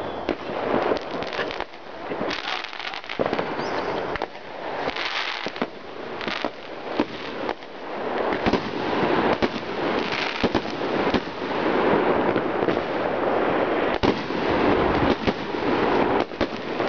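Many fireworks going off at once: a continuous crackle packed with sharp bangs, growing louder about halfway through.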